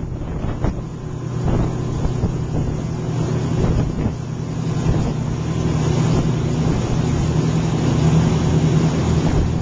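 Fishing boat's engine running steadily, a low, even hum, with wind buffeting the microphone.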